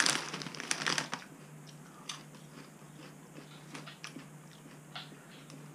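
A crisp packet crinkling as a hand goes into it, then crisps crunched and chewed, with fainter scattered crunches after the first second or so.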